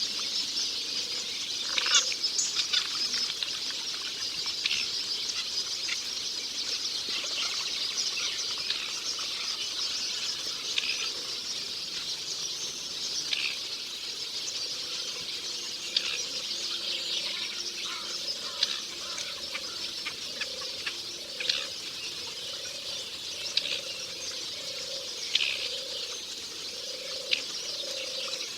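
Forest ambience: birds chirping now and then over a steady high-pitched hiss of calls, with a low note repeating about once a second through the second half.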